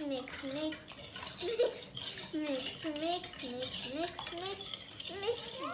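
A utensil stirring the wet muffin ingredients in a mixing bowl: rapid scraping and clinking against the bowl, with squeaky rising and falling tones on the strokes, about two a second.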